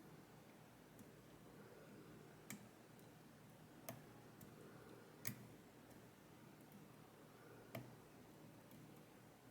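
Faint, sparse clicks of a steel lock pick working the top pins of a U-Shin Showa NX high-pin-count lock held under tension: a handful of sharp ticks spaced a second or more apart over low room hum, as the picker tries to set a stubborn top pin.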